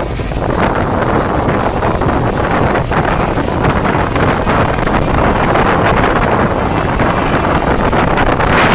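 Wind buffeting the microphone: a steady, loud rushing noise with gusts, which covers any sound of the boats and water sprays.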